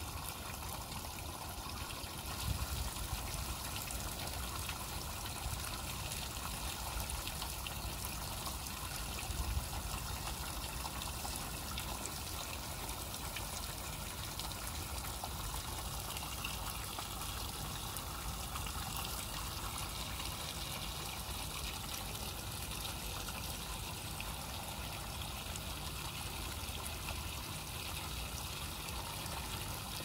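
Small stream trickling and washing over rocks, a steady even rush of water. Two brief low thumps stand out, one a couple of seconds in and one about ten seconds in.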